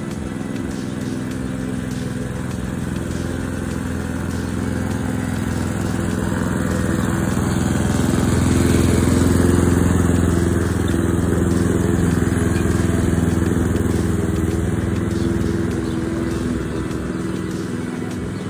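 Mountfield SP535 HW lawn mower's Honda four-stroke petrol engine running steadily while mowing, growing louder toward the middle and easing off again.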